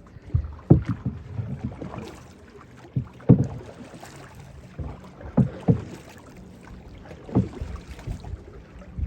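Water slapping and splashing irregularly against a small boat, with several sharper slaps spaced a second or two apart over a low, steady wash of noise.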